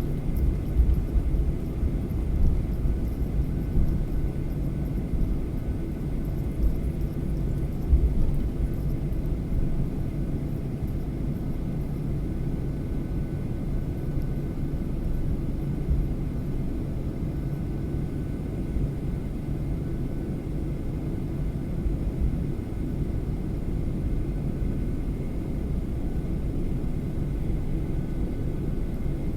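Steady low rumble of an ANA airliner's engines, with faint steady whine tones above it. There are uneven low jolts over the first several seconds, then it evens out.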